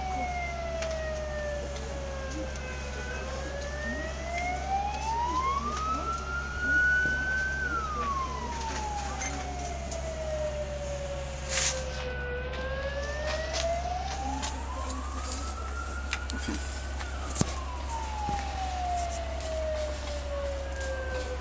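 Siren wailing slowly, its pitch sweeping down and up in long glides of several seconds each, pausing briefly at the top of each rise. A steady low hum lies underneath.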